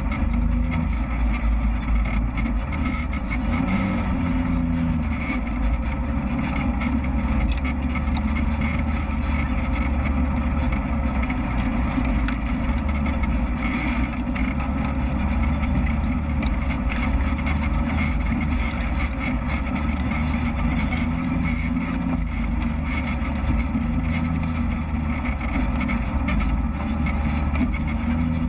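Off-road vehicle's engine running steadily as it drives a dirt trail, one continuous drone with small rises and falls in pitch.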